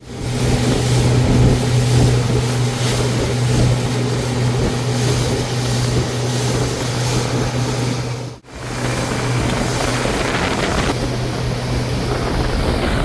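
Motorboat engine running at a steady pitch, with water and wind rushing past; the sound drops out briefly about eight seconds in.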